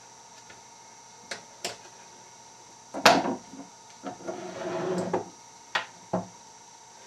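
Lock-picking tools and a lock being handled: a few sharp clicks, a loud knock about three seconds in, then a rattling scrape lasting about a second, and two more clicks near the end.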